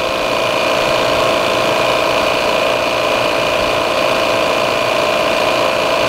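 Appion G5 Twin refrigerant recovery machine running steadily with a constant hum and whine, its compressor pumping R-410A out of a home air conditioner into a recovery tank.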